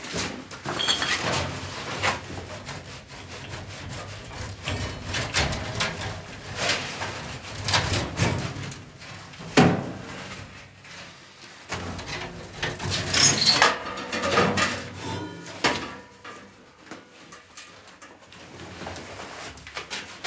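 Irregular knocking and clattering, a string of separate knocks and clicks that come in louder clusters.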